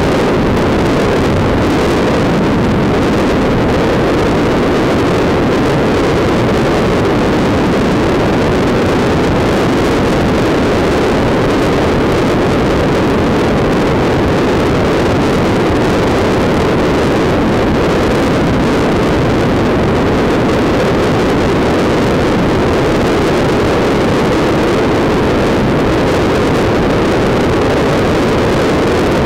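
Honda CBR sport motorcycle cruising at a steady speed, its engine drone blended with wind rush on the microphone as one even noise.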